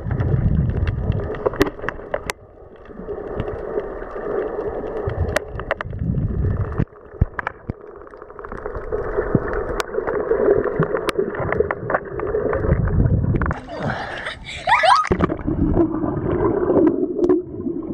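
Muffled gurgling and sloshing of water heard by a camera held underwater, dull and cut off at the top, with scattered sharp clicks. Near the end comes a brief, brighter burst of splashing and bubbling as the camera moves through churned water near the surface.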